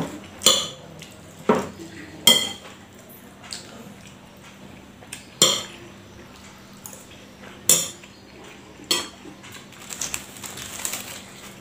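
Metal spoon clinking and scraping against a ceramic plate while scooping up rice: about seven sharp, irregularly spaced clinks.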